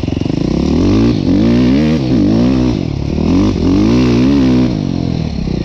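KTM SX-F 450 single-cylinder four-stroke dirt bike with an Akrapovič exhaust, ridden on a forest trail. After a second of steady running, the revs climb and drop about four times, then settle again near the end.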